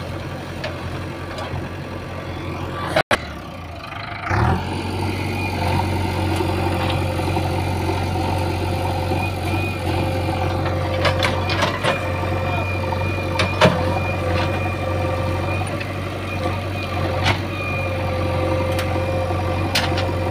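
JCB 3DX backhoe loader's diesel engine running steadily, cutting out briefly about three seconds in and then running louder. Several sharp knocks come in the second half.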